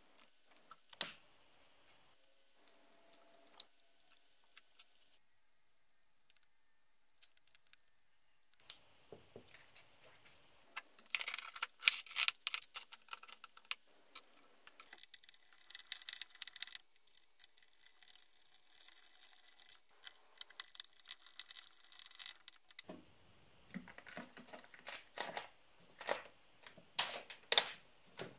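Scattered clicks and light plastic-and-metal clatter of hands handling a Husqvarna 440 chainsaw and small parts on a workbench, with one sharp click about a second in and quiet stretches between bursts.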